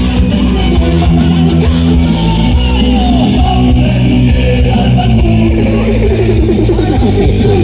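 Loud dance music over a sound system: an instrumental stretch led by guitar over a steady bass line.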